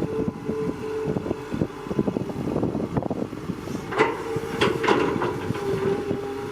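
Excavator running and working, its engine and hydraulics giving a steady whine over a dense rattling clatter, with a few sharp knocks about four to five seconds in.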